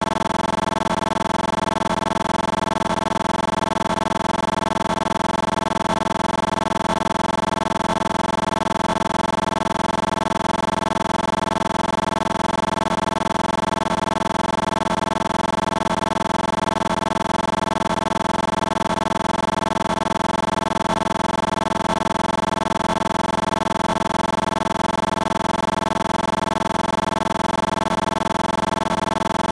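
A steady, unchanging drone made of several held tones, with no breaks or changes in level.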